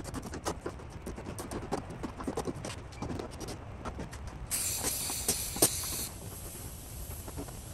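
Light, irregular metallic clicks and taps as clecos are handled and worked in and out of the rivet holes of a thin aluminium stabilizer skin. About four and a half seconds in, a pneumatic tool lets out a burst of air hiss lasting about a second and a half, with one sharp louder click in it.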